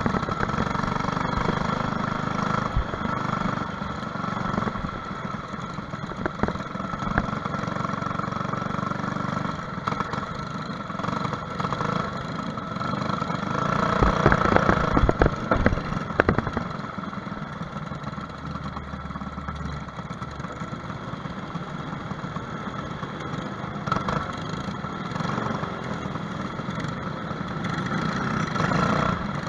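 Onboard sound of a kart's Briggs & Stratton LO206 single-cylinder four-stroke engine running at low revs and idling. About halfway through there is a louder burst of knocks and rattling.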